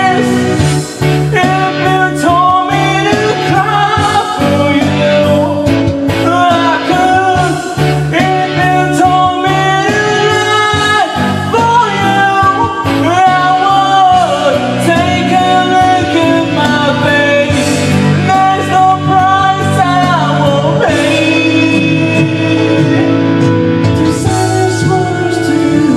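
Harmonica, held in cupped hands, playing a melody with bent, wavering notes over guitar backing music.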